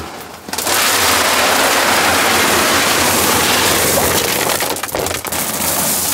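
Dry dog kibble pouring from a large food sack into a plastic barrel: a steady rattling rush of pellets. The flow starts about half a second in and breaks off briefly just before five seconds in as the next sack is tipped, then goes on.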